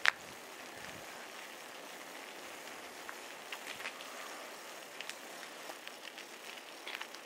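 Quiet outdoor ambience: a steady faint hiss, with a sharp click at the very start and a few light ticks scattered through.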